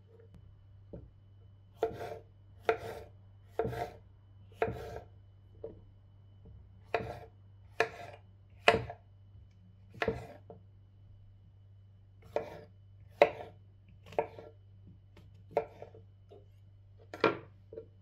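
Kitchen knife slicing white button mushrooms on a wooden cutting board. Each cut ends in a sharp knock of the blade on the board, about one a second and unevenly spaced, with a short pause midway.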